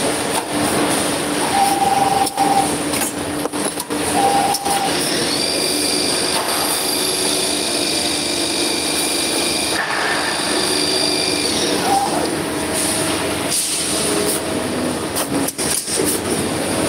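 Copper tube cutting and end-forming machine running: a steady mechanical clatter broken by sharp clicks from its pneumatic cylinders and clamps. A high steady whine comes in for about six seconds in the middle.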